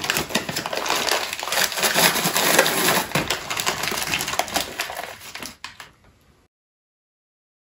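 Crinkly plastic Marabou Non Stop candy bag rustling and crackling as fingers rummage inside it for a sweet, dying away about six seconds in.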